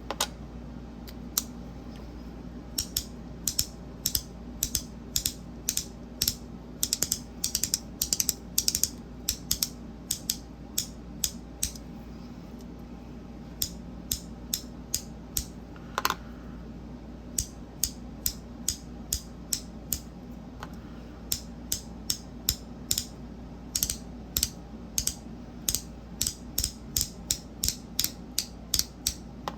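Magnetic fidget being worked by hand, its parts snapping together in sharp clicks that come in quick runs with short pauses. One brief ringing ping about halfway through.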